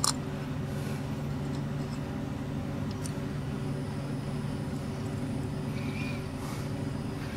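A steady low mechanical hum with several constant tones, like a motor running nearby, with a few faint clicks over it.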